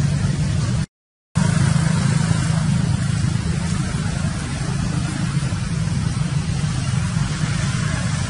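Steady low rumbling noise with a hiss over it, broken by a brief dead-silent gap about a second in.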